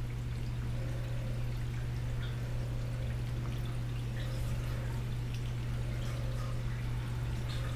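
Reef aquarium water trickling and splashing, with a steady low hum underneath.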